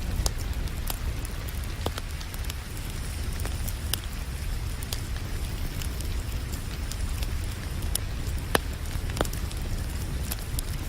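Wood fire crackling with sharp, irregular pops, the strongest a little past the middle, over a steady hiss of rain and a low rumble.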